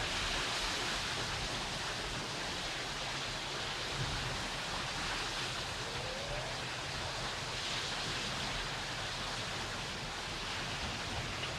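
Ocean surf on a beach, a steady rushing wash of waves.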